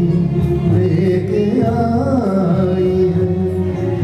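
A man singing a Hindi song into a microphone over instrumental backing music, his melody sliding up and down about halfway through.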